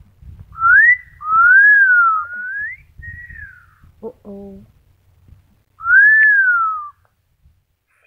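Amazon parrot whistling a tune: a run of gliding whistles that rise and fall over the first three seconds, a short one after it, and another long rise-and-fall whistle about six seconds in.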